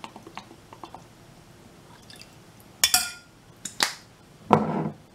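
Small drips and taps as soy sauce is poured into a metal tablespoon, then two sharp clinks about a second apart as the spoon knocks against the ceramic bowl, and a duller knock near the end.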